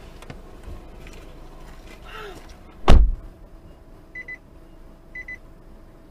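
A car door shuts with a single heavy thump about three seconds in. After it comes a short high double beep, repeated about once a second.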